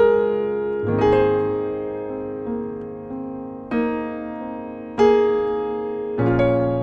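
Grand piano played solo: slow chords struck every second or so, each left to ring and fade, with deep bass notes coming in about a second in and again near the end.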